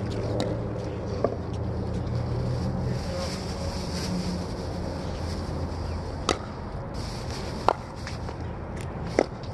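Pickleball paddles hitting a perforated plastic pickleball: sharp pops, one about a second in, then three more about a second and a half apart in the second half, over a steady low hum.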